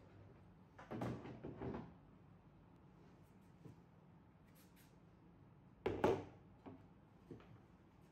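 Hollow plastic panels of a screwless IFAM storage organizer knocking and clattering as they are handled and fitted together: a cluster of knocks about a second in, a sharper, louder knock about six seconds in, then a few small clicks.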